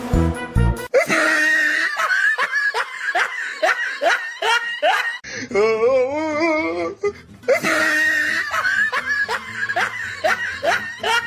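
Laughter in quick, repeated falling peals, in two bursts, with a wavering, wobbling pitched sound between them.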